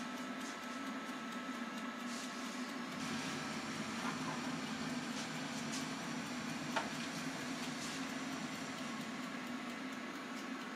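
Monsieur Cuisine Plus kitchen machine steam-cooking: a steady low hum with a hiss of water boiling in the bowl beneath the steamer, and a few faint ticks.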